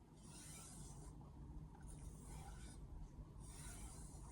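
Faint strokes of a Mercer 8-inch granton-edge knife blade drawn across the suede side of a plain leather strop: three soft hissing rubs, each about a second long, one every second and a half or so.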